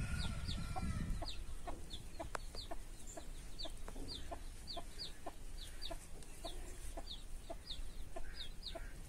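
Country chicken chicks peeping: short, high, falling peeps about two a second, with soft low clucks among them.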